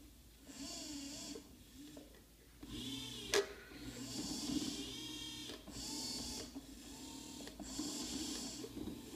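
Two 12 V DC gearmotors with crank arms whirring under radio-control stick commands, starting and stopping in several short runs of a second or two each. A single sharp click comes about three and a half seconds in.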